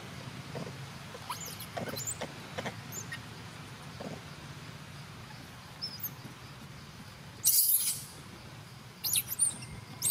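Monkeys giving short, high squeaks and chirps over a low steady hum, with a couple of brief, louder noisy bursts in the second half.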